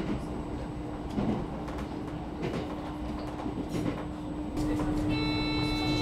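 Running noise of the Echigo Tokimeki Resort diesel railcar heard from inside the carriage: a steady low rumble with a constant hum and a few light clicks. It grows louder about four and a half seconds in, and a steady pitched tone sounds for about a second near the end.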